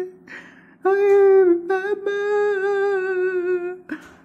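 A person humming long, steady held notes, each one after a short breath drawn in.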